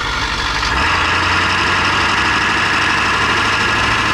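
Big-block tow truck engine revved up and held at steady high revs for a burnout; the note climbs for about a second, then holds without changing pitch.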